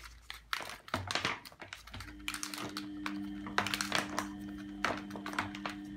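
Irregular clicks and knocks of hard plastic parts and cable being handled as a vacuum cleaner's cable rewind reel is lifted out. About two seconds in, a steady low hum with two tones starts and carries on underneath.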